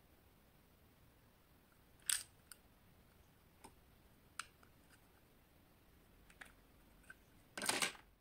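Hard plastic bottle caps being handled: a few sharp, scattered clicks and taps as they knock against each other and against fingers, then a longer clattering rattle near the end.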